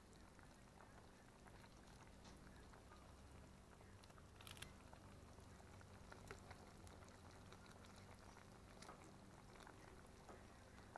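Very faint simmering of a pot of curry with coconut milk: soft, steady bubbling and crackle, with a few light clicks, the clearest about four and a half, six and nine seconds in.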